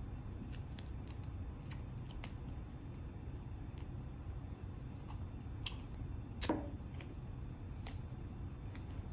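Scissors cutting a strip of duct tape in half: scattered small snips and clicks, the loudest about six and a half seconds in, over a steady low hum.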